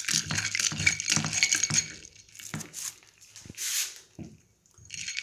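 Small hard lumps of frankincense resin and gum arabic clinking and rattling against a glass container as they are rinsed. There are many quick clinks in the first two seconds, then scattered ones, with a brief rush of water about three and a half seconds in.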